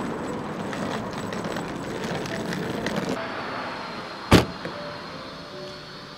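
Street traffic noise, then a car's rear hatch slammed shut once with a loud thunk, a little over four seconds in.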